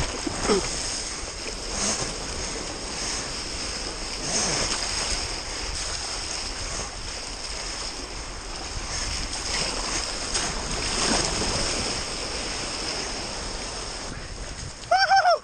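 Water rushing and splashing past a surfboard riding a small wave, heard from a camera mounted on the board, with wind on the microphone. Near the end a brief, loud, high-pitched shout.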